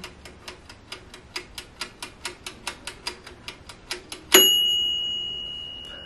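Dash Mini Toaster Oven's mechanical timer ticking rapidly and evenly. About four seconds in, the timer knob is forced to off and the timer's bell dings once, ringing on and fading slowly.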